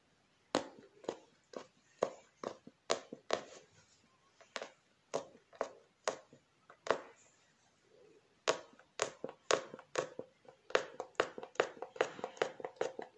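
Punch needle stabbing through doubled fabric stretched tight in a wooden embroidery hoop: a series of sharp pops, about two a second, with a short pause midway and quicker strokes near the end.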